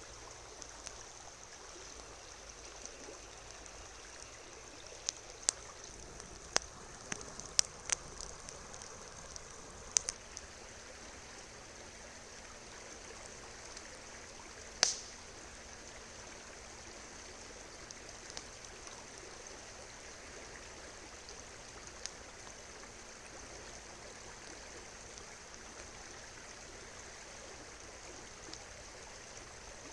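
River water flowing steadily. A few sharp clicks and knocks come through it, clustered a few seconds in, with one louder knock about halfway through.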